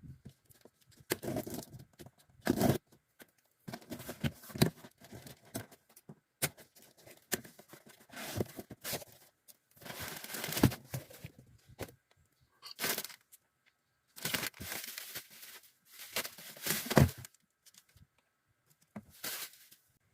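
Packing material being torn and crinkled by hand in irregular bursts, some a second or more long, with short clicks and knocks between.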